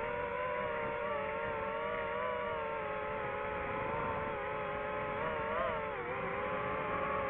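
DJI FPV drone's motors and propellers whining steadily in flight, the pitch wavering a little and dipping briefly about six seconds in before climbing again.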